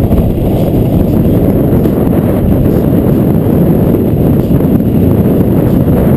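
Loud, steady wind rumble buffeting the microphone of a camera on a bicycle descending at speed.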